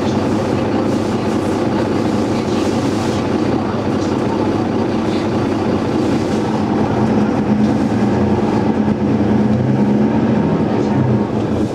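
Single-deck city bus's engine and transmission running under way, heard from inside the saloon, with a steady drone. The engine note swells from about halfway through and eases just before the end.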